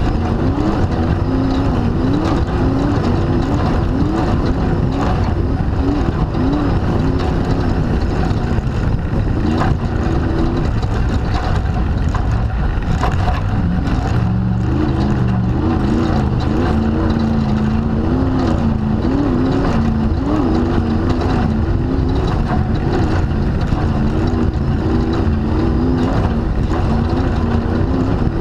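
Off-road race car's engine running hard, heard from an onboard camera, its pitch rising and falling constantly as the throttle comes on and off, dropping lower for a couple of seconds about halfway through. Knocks and rattles from the car over bumps run through it.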